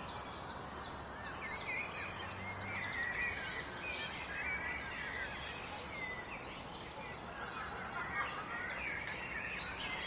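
Several small birds singing and chirping, many quick rising and falling notes, over the steady rush of a waterfall.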